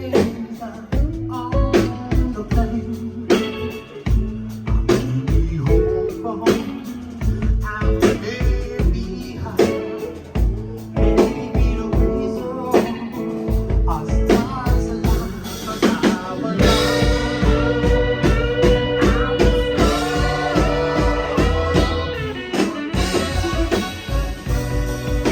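Live blues-rock band playing with drum kit, electric guitar and singing. The band gets fuller and more sustained about two-thirds of the way through.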